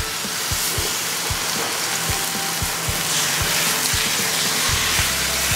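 Seasoned beef brisket searing in hot oil in a rondeau: a steady, dense sizzle as the pieces are laid into the pan. Background music with a low beat runs beneath it.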